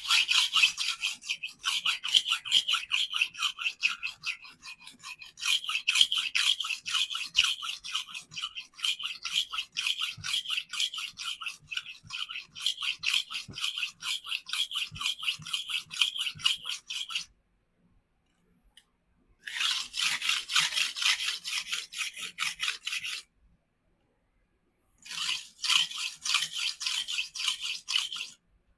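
Knife blade scraped rapidly back and forth on the coarse 50-grit side of a wet resin-bond diamond sharpening stone, a gritty rasp about three strokes a second. It stops twice for a couple of seconds and starts again. This is coarse grinding to take chips out of the edge.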